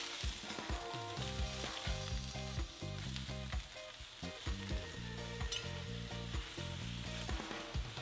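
Bok choy sizzling in hot oil in a stainless steel wok as it is stir-fried, with the metal spatula clicking and scraping against the pan now and then.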